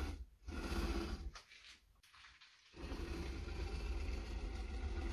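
Dial indicator on its heavy stand being slid across a solid aluminium plate while the plate's flatness is checked: a rough rubbing, scraping noise with a low rumble. It comes in two stretches, a short one at the start and a longer one from about three seconds in.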